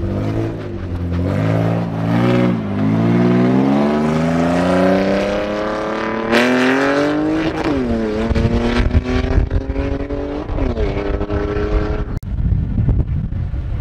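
BMW E46 323Ci's M52 straight-six engine revving: a few quick blips, then a long climb in pitch over about four seconds and a drop, followed by two more short blips. Near the end it cuts off suddenly to wind buffeting the microphone.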